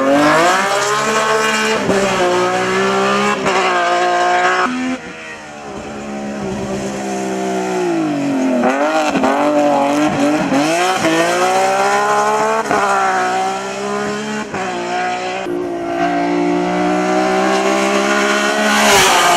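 BMW E30 hill-climb race car engine at high revs under hard acceleration, its pitch climbing and dropping sharply at each quick gear change. About five seconds in it goes off the throttle, then blips and wavers through downshifts before pulling hard up through the gears again.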